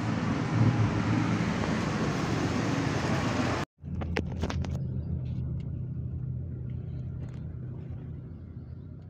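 A car's running engine heard from inside the cabin, a steady hum with a hiss over it. About four seconds in it cuts off abruptly. A quieter hum returns with a few clicks and fades out.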